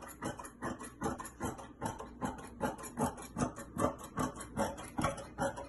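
Scissors cutting through lightweight stretch fabric: a steady run of snips, about three to four a second.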